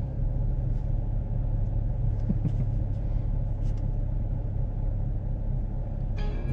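Car idling while stopped, heard from inside the cabin as a steady low rumble.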